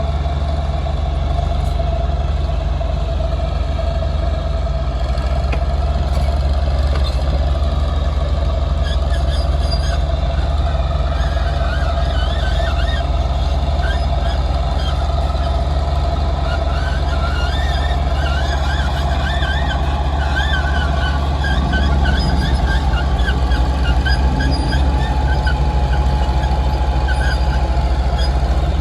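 Heavy diesel earthmoving machinery running steadily with a deep, constant engine drone. Short, high, wavering squeaks ride over it from about a third of the way in until near the end.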